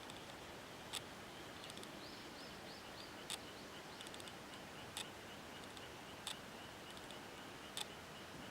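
Wild birds calling over a steady high-pitched trill: five sharp, short calls spaced a second or two apart, and a quick run of small rising chirps about two seconds in.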